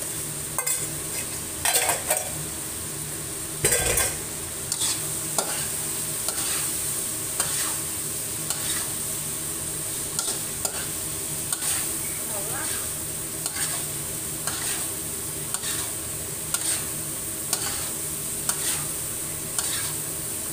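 Metal spatula scraping and knocking against a wok while meat and liver stir-fry with a steady sizzle. The spatula strokes come about once a second, the loudest about two and four seconds in.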